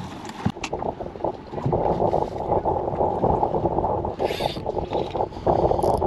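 Steady wind and sea noise aboard a fishing boat, thickening about two seconds in, with a few light clicks and a brief hiss from handling the rod and reel.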